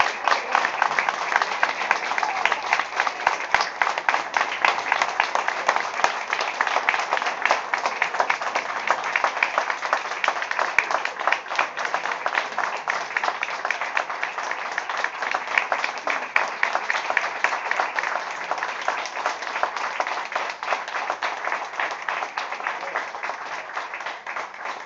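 Audience applauding, many hands clapping, tapering off near the end.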